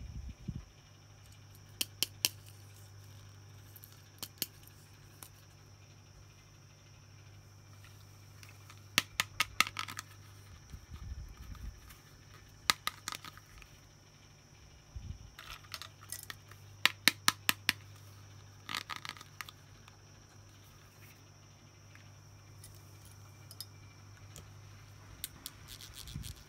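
Small hard plastic toy pieces being handled: scattered sharp clicks and taps, with a few quick runs of five or six clicks, over a low steady hum.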